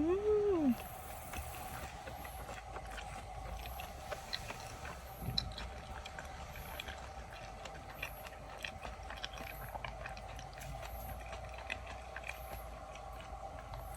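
Quiet eating: scattered small clicks and rustles of takeout food containers being handled and food being chewed, over a steady faint hum. A short rising-and-falling vocal hum comes at the very start and is the loudest sound.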